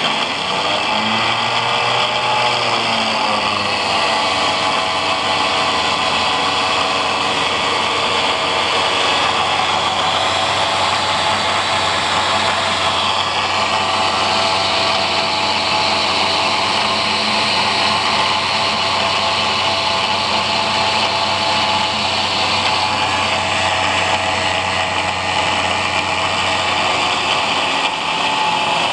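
Angle grinder mounted as a cut-off saw running steadily at speed, with a high whine over a hiss. Its pitch sways briefly about two seconds in and again near the end.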